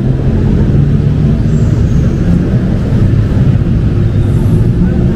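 Steady road traffic on a busy city street: vehicle engines running close by in a continuous low rumble.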